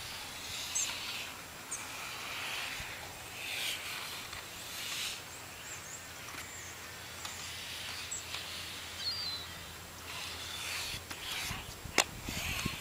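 Inline figure skates on Synergy 89A 72 mm wheels rolling on a hard tennis-court surface. The soft swishing swells and fades every second or so. Brief high chirps come and go, and a single sharp click sounds near the end.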